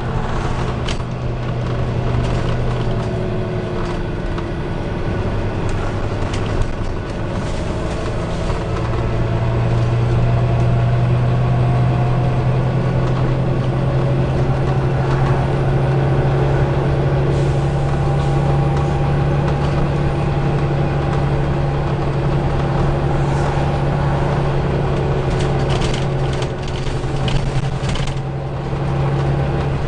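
Volvo B9TL double-decker bus's six-cylinder diesel engine running under way, heard from inside the passenger saloon as a steady drone that grows louder about nine seconds in, with the body's interior rattles and clicks over it.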